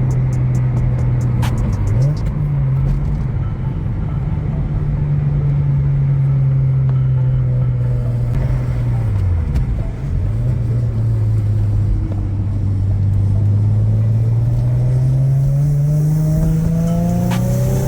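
Infiniti G37's 3.7-litre V6 engine pulling a car under way: a steady engine drone that drops in pitch and recovers twice, about two seconds in and again about halfway, as at gear changes. Near the end it climbs steadily in pitch as the car accelerates.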